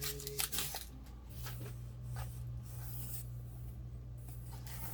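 Subwoofer and its packaging being handled: scattered rustling, scraping and light knocks. A steady low hum starts about a second in.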